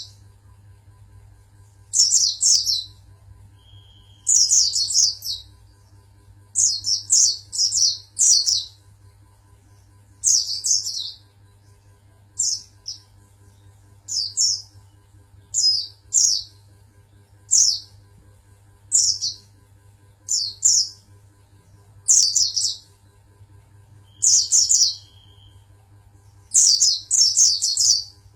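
Pleci (white-eye, Zosterops) singing: short, high-pitched chirping song phrases repeated every second or two, over a faint steady low hum.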